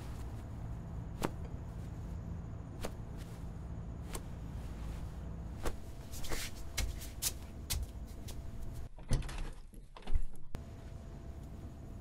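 Scattered light knocks and taps over a low steady hum in a small bare room, bunching together a little past halfway, with one louder thump about ten seconds in.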